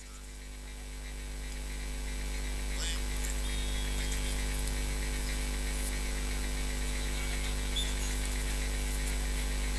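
Steady electrical mains hum, a low buzz at about 50 Hz with a ladder of overtones, from the live commentary's sound system; it grows louder over the first two seconds and then holds steady.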